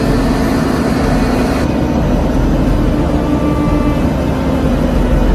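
Diesel power pack of a Sarens self-propelled modular transporter running steadily as it moves under a heavy load. It makes a constant low hum with a steady drone. The higher hiss drops away about a second and a half in.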